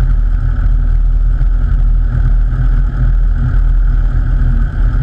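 Cessna 172's piston engine and propeller running steadily while the aircraft taxis, heard close up from outside the cabin as a loud, even low drone.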